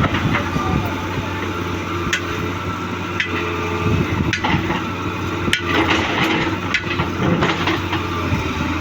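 Excavator's diesel engine running steadily, with sharp knocks and clanks coming irregularly about once a second as the machine works.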